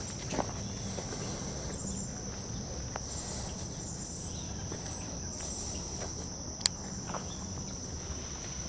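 Steady high-pitched insect chorus, one continuous unbroken tone. A few short clicks sound over it, the sharpest about two-thirds of the way through.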